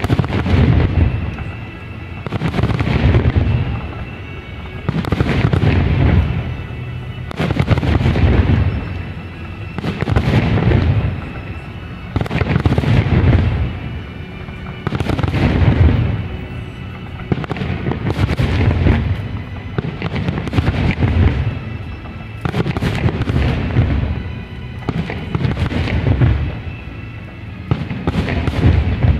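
Aerial fireworks shells bursting in a steady sequence, about one every two and a half seconds, each a loud boom with a rumbling tail that dies away over a second or two.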